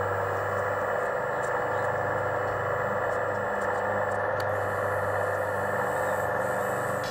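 Drilling rig on an RC model rail excavator running steadily while it drills into the rock face: an even whirring noise over a low hum.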